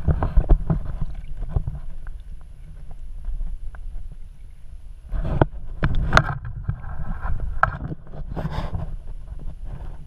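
Water sloshing and knocking against an underwater camera housing, heard muffled as a low rumble with scattered clicks, and a burst of splashing about five to six seconds in as the camera breaks the surface.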